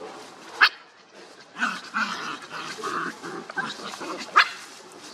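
Small dogs, Pomeranian puppies, barking: two short sharp barks, about half a second in and near the end, with a stretch of softer, irregular dog noises between them.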